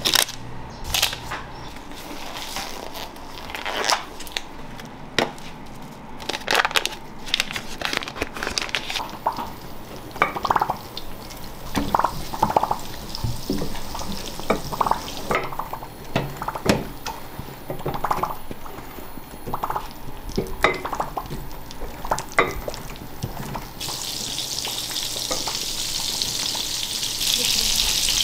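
Scattered knocks and clicks as a takoyaki pan is brushed with oil. About two-thirds of the way in, oil starts sizzling steadily in the pan's hot wells, growing louder near the end.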